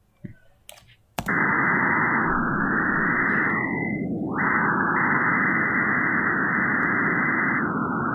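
Playback of synthetic noise edited in spectral view: a steady rushing hiss with nothing above about 2 kHz starts suddenly about a second in. Its upper part dips briefly in the middle and near the end, where frequency regions were erased.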